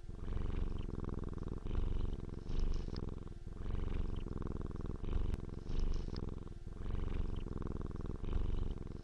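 A cat purring close up, the purr swelling and easing with each breath.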